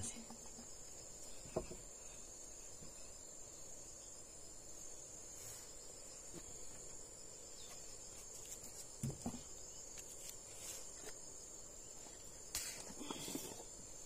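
Steady high-pitched chorus of insects, with a few faint knocks and rustles.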